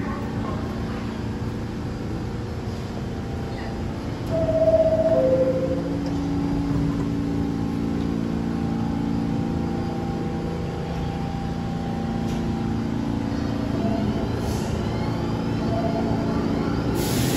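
R46 subway train standing at the platform, its equipment giving a steady hum. About four seconds in, a two-note descending door chime sounds, signalling the doors are closing.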